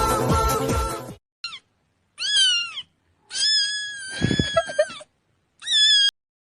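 Music cuts off about a second in, then a cat meows four times: a brief chirp, a falling meow, one long drawn-out meow, and a short one near the end.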